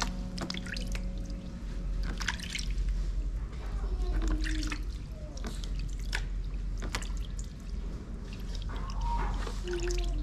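Water dripping and splashing in a plastic wash basin as a hand scoops bathwater over a baby monkey's head, in irregular small drips and splashes.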